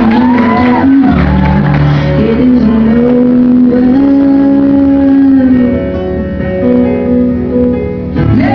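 A song playing: music with held notes and a singing voice in the first seconds, its level dipping slightly toward the end.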